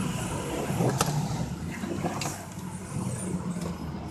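Ford F-250 Super Duty pickup's engine idling steadily, with two brief clicks about one and two seconds in.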